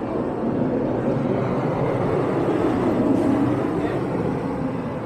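City street traffic with a motor vehicle passing close. Its engine and tyre noise swells to a peak about three seconds in, then fades.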